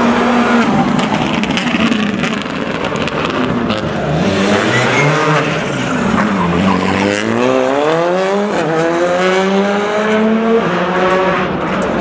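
Rally car engine running hard through a corner: its pitch drops as it slows, then rises as it accelerates, with a brief break about eight and a half seconds in, like a gear change, and the pitch climbs again.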